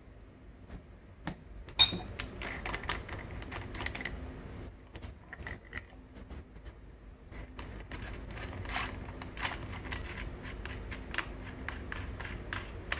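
Metal clicks and clinks of a steel crank puller tool and its parts being handled and fitted on an aluminium engine crankcase, with one sharp metallic click about two seconds in.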